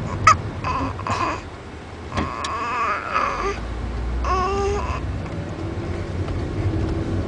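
A drowsy baby with the hiccups: a few short, sharp hics in the first second or so, then two brief whimpering cries, each about a second long, in the middle.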